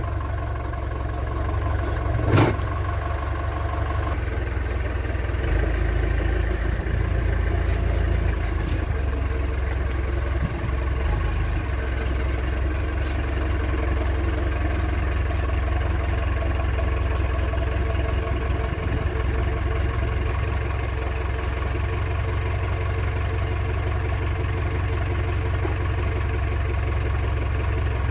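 Tractor loader's engine running steadily while it hoists a slung hydraulic pump, with one sharp knock about two seconds in and the engine note picking up slightly a few seconds later.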